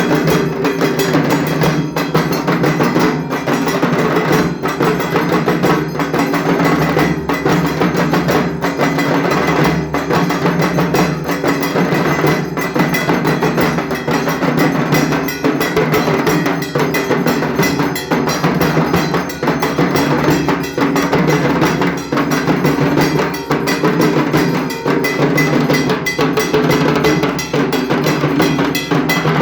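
Dhak, the large Bengali barrel drum, beaten with sticks in a fast, unbroken rhythm of dense strikes.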